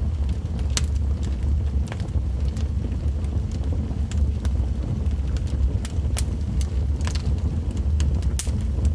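Wood fire crackling, with sharp pops about once every second or two over a steady low rumble.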